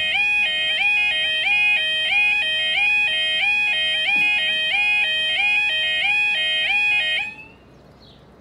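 UK level crossing yodel alarm warbling back and forth between two tones, about two cycles a second, while the barriers lower. It cuts off suddenly about seven seconds in, once the barriers are fully down.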